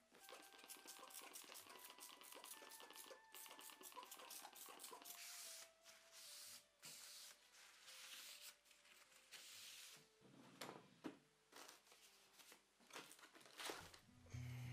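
Faint hand scraping and rubbing strokes against a steel lathe slideway, cleaning up excess metal: quick short strokes at first, longer strokes from about five seconds in. Near the end they give way to a few knocks and a rustle.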